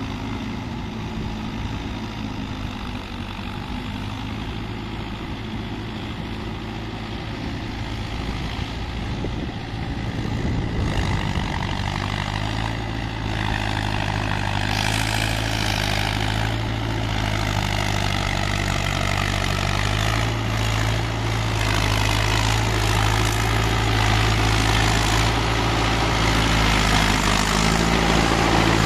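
Mahindra tractor's diesel engine running steadily while its rotavator churns a flooded paddy field, growing louder as the tractor comes closer. From about halfway the churning and splashing of mud and water rise with it.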